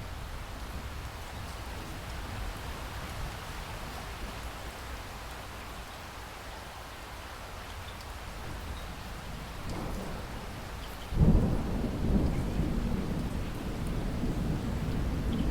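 Steady rain falling, then a sudden loud clap of thunder about eleven seconds in that rolls on as a low rumble.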